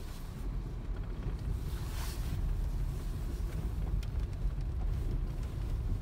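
Car driving slowly on snow and ice with tyre chains fitted, heard from inside the cabin: a steady low rumble with a brief hiss of tyres through snow about two seconds in.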